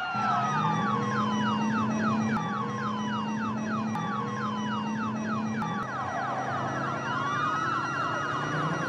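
Several police car sirens sounding at once: a fast yelp of quick falling sweeps, about five a second, with slower rising and falling wails over it.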